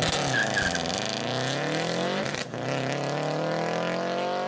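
Car engine accelerating hard, its pitch climbing steadily, dropping briefly at a gear change about two and a half seconds in, then climbing again.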